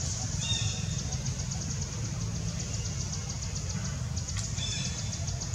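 Forest ambience: a high insect chorus pulsing in a rapid, even rhythm over a steady low rumble. Two brief high calls come about half a second in and again near the end, with a single click just after four seconds.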